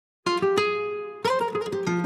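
Intro music on a plucked string instrument: a short run of ringing, decaying notes starts a moment in, with a second phrase of quicker notes at about a second.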